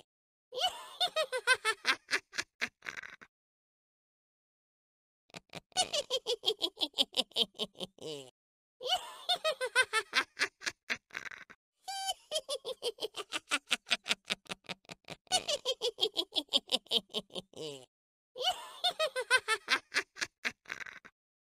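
A witch's cackling laugh: a rapid run of high, pulsing laughs that falls in pitch, repeated about six times with short gaps between.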